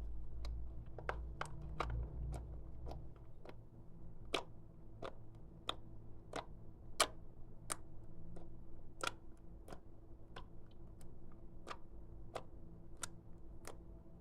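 Clear slime being pressed and kneaded by hand, making sharp, irregular clicks and pops roughly one to two a second.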